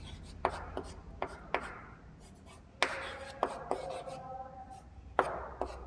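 Writing by hand: a series of light, irregular taps and short scratching strokes, about nine in a few seconds.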